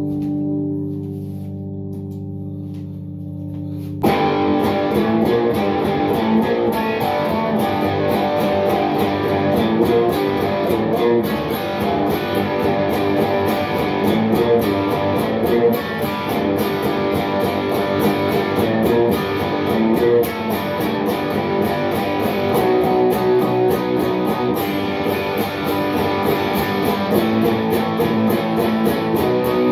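Electric guitar with a Telecaster-style body, played through an amplifier with some distortion. A held chord rings for the first few seconds, then full strummed rhythm playing with a steady beat starts about four seconds in.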